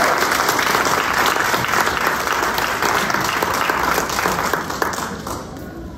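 Audience applauding, many hands clapping at once, fading out about five seconds in.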